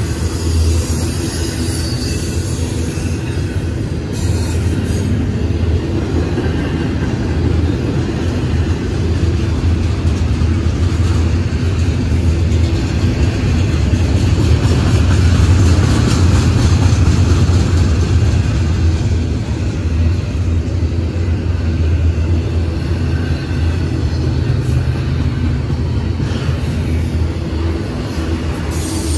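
Double-stack intermodal freight train's well cars rolling past: a steady low rumble of steel wheels on rail, swelling a little in the middle.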